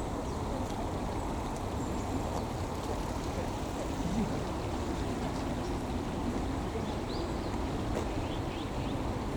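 Steady babble of a shallow stream running over stones. A few faint, high, short bird chirps come in the second half.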